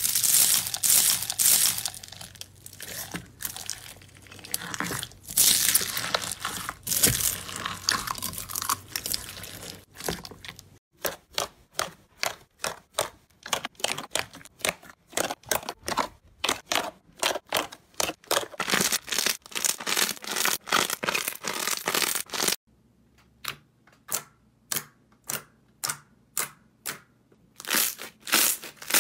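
Slime being squeezed and pressed, crackling and crinkling: a dense crackle for about the first eleven seconds, then a quick run of sharp pops, and from about 23 seconds in, separate pops with short gaps between them.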